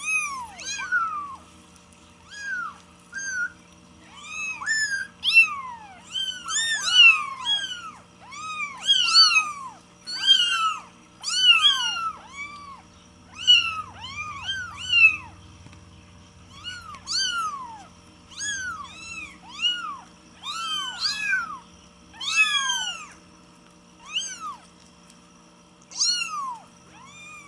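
Young kittens mewing over and over: thin, high cries that rise and then fall in pitch, often two or three in quick succession and sometimes overlapping, from more than one kitten.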